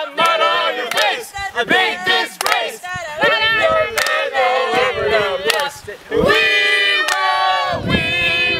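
A group of people singing loudly together in unison, with a long held note about six seconds in that drops away at its end.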